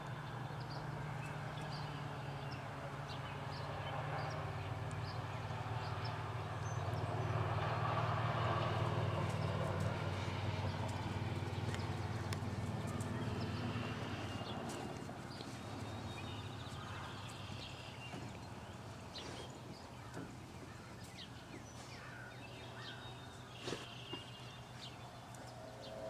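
Outdoor farm ambience: a steady low rumble that swells about a third of the way in and then fades, with faint bird chirps and a few small knocks.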